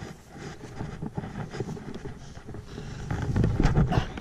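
Wind buffeting the microphone, an uneven low rumble with some rustling, swelling louder for about a second near the end.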